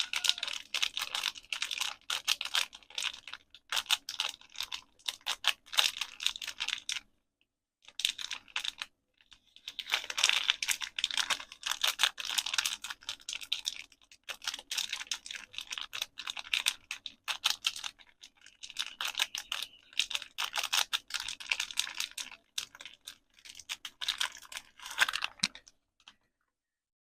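Rapid fingernail tapping on soap packaging: fast dry clicks in several runs of a few seconds with short pauses, stopping near the end.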